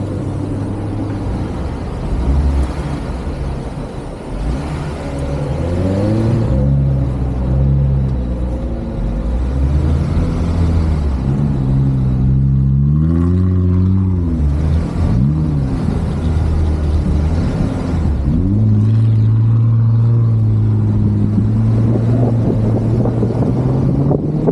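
Jeep Wrangler's engine driving on sand dunes, revving up and down several times, then holding a steadier drone for the last few seconds.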